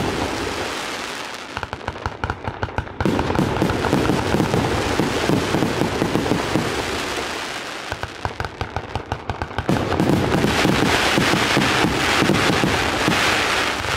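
A 1088-shot Shanzao fireworks cake firing continuously: a dense run of launch thumps and bursts with crackling stars. There are two stretches of fast, evenly spaced shots, and a thick crackle in the later part.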